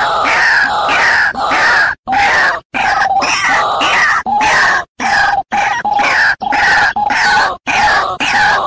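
White-breasted waterhen (ruak-ruak) calls played as a bird-trapping lure: loud, harsh croaking notes repeated about twice a second, cut by a few abrupt short gaps.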